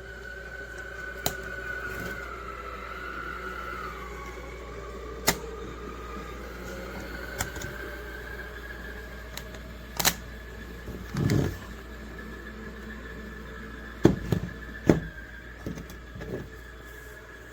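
A small motor whining steadily, its pitch sagging for a couple of seconds and then recovering, under scattered sharp clicks and knocks, with a short low thud about eleven seconds in.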